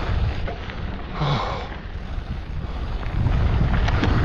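Wind buffeting the microphone over the rolling crunch and rattle of a Specialized Fuse mountain bike's tyres and frame on a dirt singletrack, with a few sharp knocks near the end.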